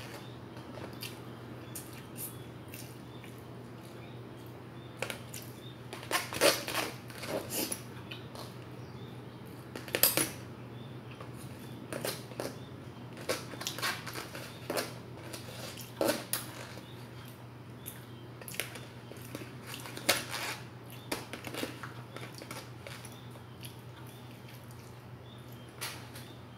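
Metal fork and spoon clicking and scraping against a plastic takeaway food container in irregular taps, over a steady low hum.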